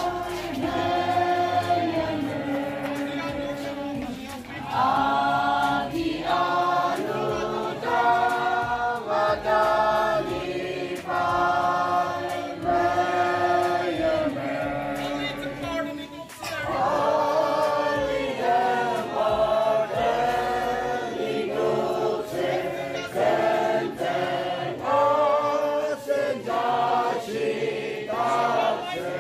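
A congregation of many voices singing a hymn together, in phrases of held notes with short breaks between lines.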